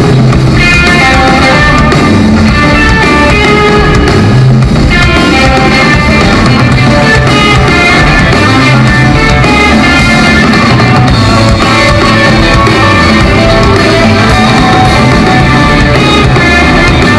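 A rock band playing live and loud: electric guitars and a drum kit in an instrumental passage.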